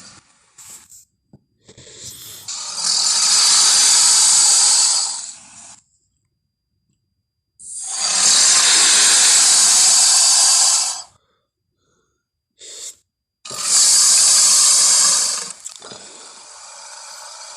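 Dimetrodon creature sound effect: three long, loud hisses of about two to three seconds each, with brief short sounds in the gaps between them and a quieter breathy hiss near the end.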